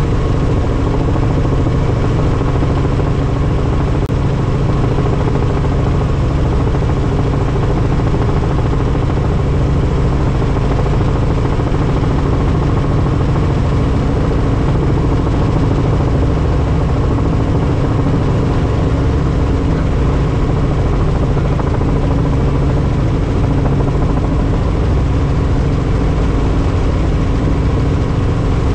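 Helicopter in flight: a loud, steady, deep drone of engine and rotor, with no change in pitch or level.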